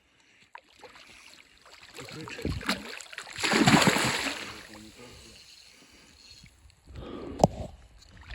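Water splashing as a hooked salmon thrashes at the surface, swelling to a loud rush about three seconds in and dying away over the next second or two. A single sharp click comes near the end.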